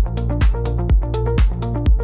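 Electronic dance music with a steady kick drum about twice a second under a repeating synth melody.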